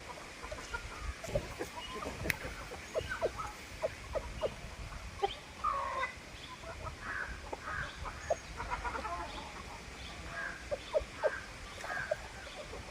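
Chickens clucking: many short, scattered clucks, with a few longer calls mixed in.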